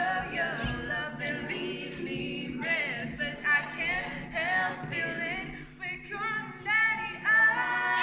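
A small group of young voices, mostly female, singing together a cappella in an impromptu rehearsal run-through, with several voice lines overlapping.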